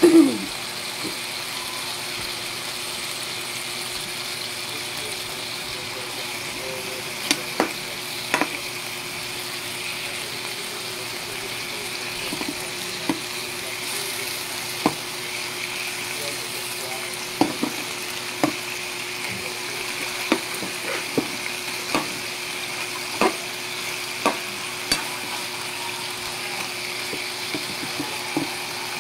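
Chicken pieces sizzling steadily as they fry in an aluminium wok. A metal ladle stirs them, knocking and scraping against the pan now and then, with a louder clank right at the start.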